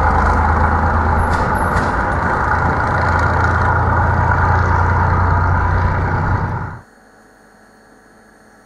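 Diesel railcar engine running steadily with a deep hum, cutting off abruptly about seven seconds in, followed by faint hall ambience.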